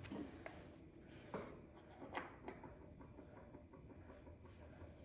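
Faint, scattered light clicks and taps of engine parts being handled, a few over a quiet room.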